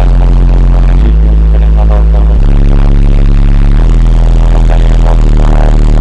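A competition car audio system playing bass-heavy music at full volume for a sound-pressure-level measurement, heard from outside the closed car. The deep bass notes hold and then step to a new pitch every second or two.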